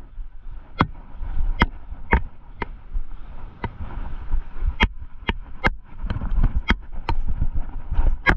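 Rocky Mountain Instinct mountain bike ridden over a rough cross-country trail: irregular sharp clicks and knocks, roughly one every half second, over a low steady rumble.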